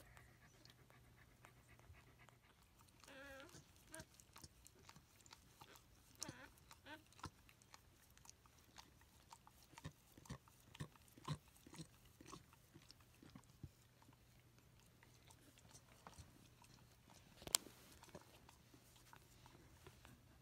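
Faint, irregular wet clicks and smacks from a Pembroke Welsh Corgi mother licking and nosing her newborn puppies, with a brief wavering whine about three seconds in and one sharper click near the end.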